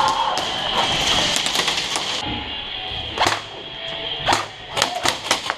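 Airsoft guns firing: several sharp, separate cracks in the second half, over a steady background hiss.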